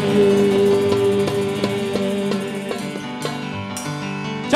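Live sholawat band music at the close of a song. A long held note sounds for about two seconds over the instruments. Changing notes follow, with sharp hand-struck frame-drum (rebana) hits.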